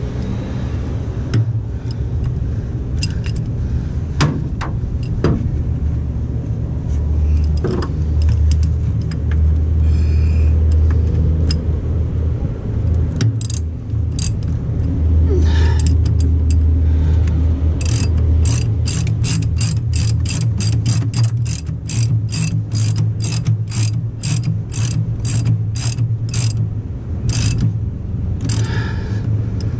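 Ratchet wrench clicking as the starter mounting bolts on a diesel motorcoach are run in: scattered clicks at first, then a long even run of about two clicks a second through the second half, over a steady low rumble.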